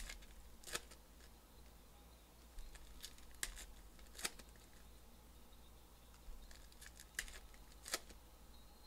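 Foil wrappers of Panini Donruss Elite football card packs crinkling and tearing as the packs are opened by hand, in a handful of short, sharp crackles at irregular intervals.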